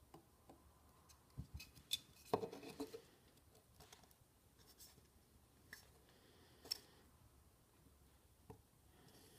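Faint knocks, clicks and scraping of 3D-printed plastic parts being handled and pressed together, with a cluster around two seconds in and a few single clicks later.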